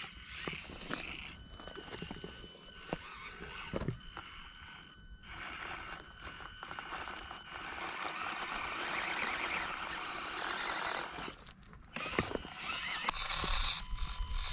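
Axial SCX24 micro RC crawler's small electric motor and gears whining while its tyres scrape and crunch over rock, busiest in the middle of the stretch.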